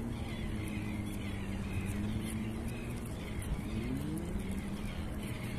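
Steady low engine drone, its pitch rising briefly about four seconds in, over a low rumble.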